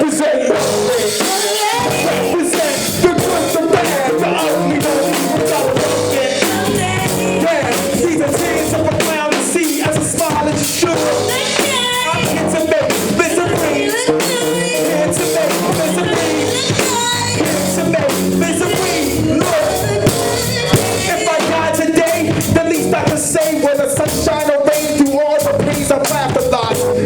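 Live band playing rock-tinged music with a drum kit, with a voice singing over it.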